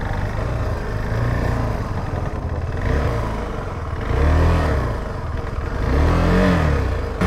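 KTM 390 Adventure's single-cylinder engine under riding load, revving up and down with the throttle, with two stronger rises and falls about four and six seconds in.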